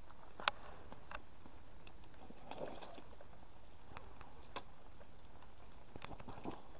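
Scattered light clicks and rustles of someone moving about and handling gear in dry grass and twigs, over a steady low hiss, with a brief soft rustle about two and a half seconds in.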